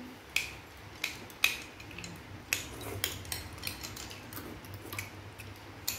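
Metal spoons clinking and scraping against ceramic bowls of fruit salad while people eat: irregular sharp clinks, several a second at times.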